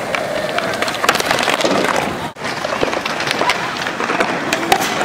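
Skateboard wheels rolling over a hard outdoor court, with scattered clacks of the board, and people talking in the background.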